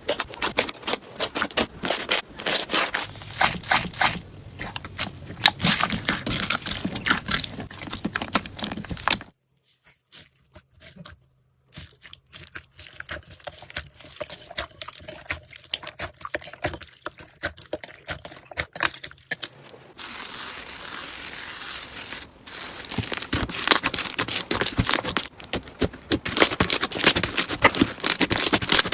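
Slime being squeezed, poked and stretched by hand, giving dense crackling and popping clicks. The sound drops to softer, sparser clicks about nine seconds in and turns dense again about twenty seconds in.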